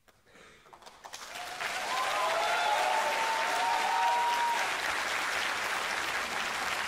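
Audience applause swelling up within about a second of silence and holding steady, with high cheering calls gliding over it for a few seconds.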